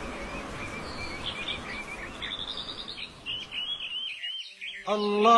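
Birds chirping in short repeated calls over a soft wash of ambient noise, dying away about four seconds in. Near the end, a voice begins a chanted recitation.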